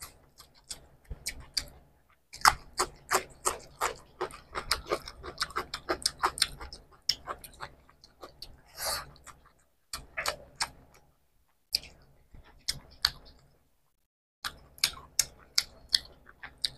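Close-up chewing of people eating curry and rice by hand: a quick, irregular run of short clicks, broken by a few brief pauses.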